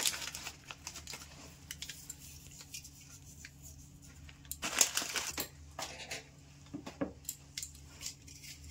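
Foil spice packet crinkling, stopping within the first half second, then hands tossing cubed paneer in a steel bowl: soft scattered rustles and light clicks, with one louder burst about five seconds in.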